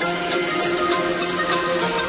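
Background music: held synth chords with a steady drum beat of about three hits a second that comes in at the start.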